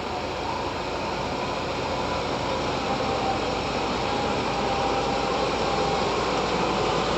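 Fendt 724 Vario tractor's six-cylinder diesel engine running steadily under load while pulling a six-furrow plough, growing gradually louder as it draws nearer.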